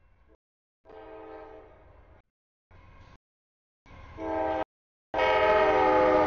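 Air horn of an approaching CSX freight locomotive sounding at a grade crossing in several blasts, each louder than the last as the train nears, the longest and loudest about five seconds in.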